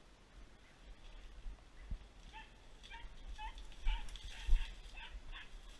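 A dog giving short, high calls in quick succession, several a second, starting about two seconds in. A few dull knocks come through as well, the loudest about halfway through.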